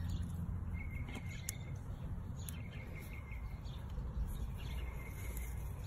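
Faint bird chirping in short quick runs, mostly in the first half, over a low steady outdoor rumble.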